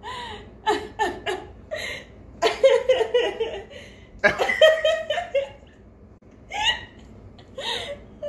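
A person laughing in short, breathy bursts again and again, with brief pauses between them.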